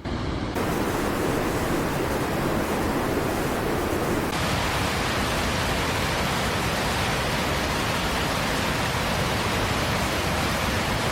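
Steady, even noise of rushing water, whose tone shifts abruptly about four seconds in.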